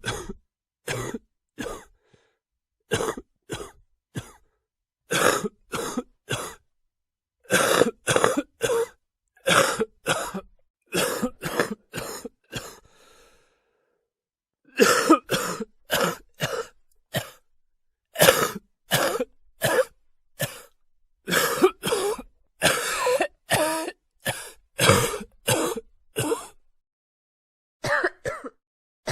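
A person coughing over and over in short fits of two to four coughs, with dead silence between the fits.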